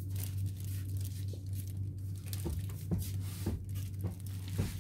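A plastic bread bag rustling and crinkling in short bursts as it is handled, over a steady low hum.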